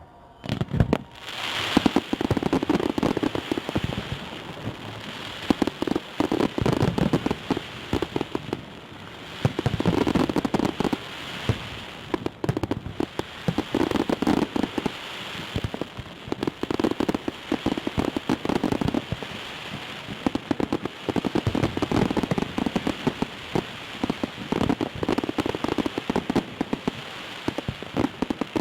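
Fireworks salute crackling: a dense run of rapid sharp pops that starts about a second in and swells in waves every few seconds.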